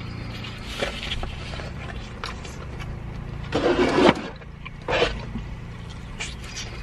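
Steady low hum of an idling car engine heard inside the cabin, with a few short eating noises close to the microphone, the loudest about three and a half seconds in.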